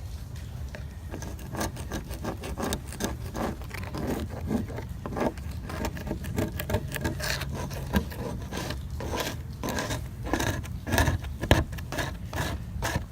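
Irregular scrubbing and scraping strokes on a plastic boat hull, working off barnacle residue softened by muriatic acid. The strokes come faster and louder in the second half.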